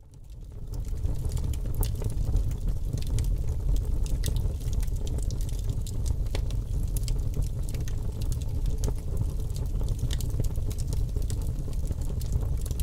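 Crackling fire ambience, a steady low rumble with irregular crackles and pops, fading in over the first second.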